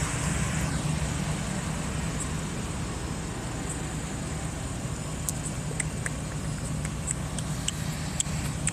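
Animal-control truck's engine idling with a steady low hum. A few small sharp clicks come in the second half.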